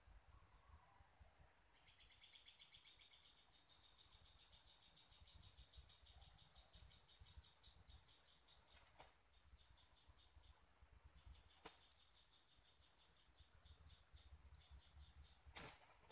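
Insects chirping steadily: a continuous high drone with a fast, evenly pulsed chirp over it. Near the end come a few sharp flaps and scuffles as two junglefowl roosters clash.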